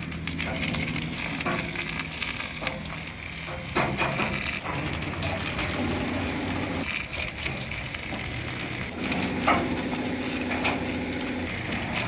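Truck-washing noise: a hissing, crackling wash, such as water spray or foam working on a dirty truck, over a steady low machine hum. The sound changes abruptly a few times, with a sharp click or knock about nine and a half seconds in.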